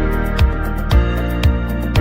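Background music with a steady beat: held chords over a low drum thump about twice a second.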